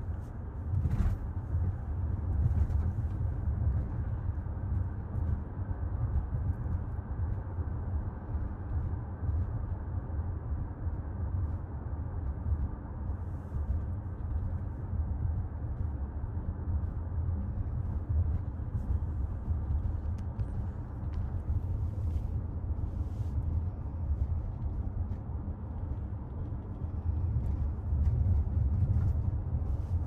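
Steady low road-and-tyre rumble of a 2024 Toyota RAV4 Limited being driven, with a few faint knocks scattered through it.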